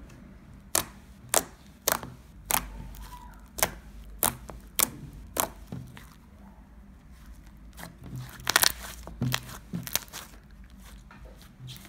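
Purple glitter slime, made from Elmer's glitter glue and Ariel liquid detergent, being poked and pressed with fingers, giving a series of sharp pops and clicks, one or two a second, with a quick cluster of them past the middle.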